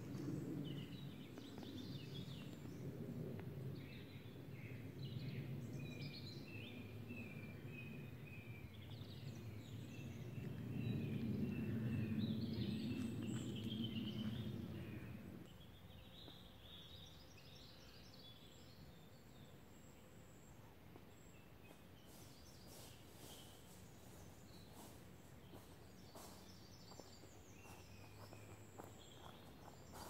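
Small woodland birds singing and chirping in broadleaf forest, with a low rumble under them that stops about fifteen seconds in. Faint light crackles, like footsteps on dry leaf litter, come near the end.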